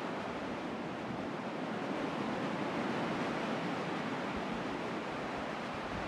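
Shallow sea waves washing up over wet sand at the water's edge: a steady, even rushing.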